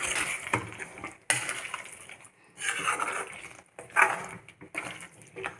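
Spatula stirring and scraping a thick curry masala with chicken and potato pieces around a metal cooking pan, with a few clinks of the spatula against the pan. The stirring breaks off briefly several times.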